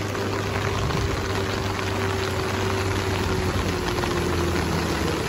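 Steady hiss of rain together with a coach bus's diesel engine pulling up a steep climb: a low drone and a steady whine that steps down a little in pitch about three and a half seconds in.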